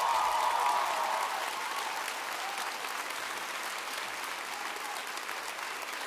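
Concert audience applauding as the song ends, loudest in the first second and then steady.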